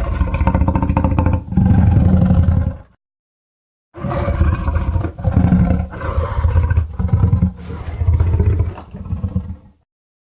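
Tyrannosaurus rex roar sound effect: one low, loud roar ending about three seconds in, then after a second's pause a longer roar of several rising and falling surges that stops shortly before the end.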